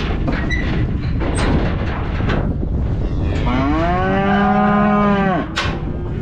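A cow mooing once: a single call of about two seconds, rising in pitch at the start and dropping away at the end, over a steady low background noise.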